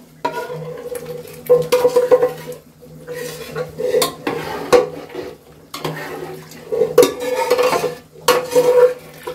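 A spoon stirring in a cooking pot of mutton paya, scraping and clanking against the metal in irregular strokes as freshly added masala is mixed into the trotters and their broth. A faint steady hum runs underneath.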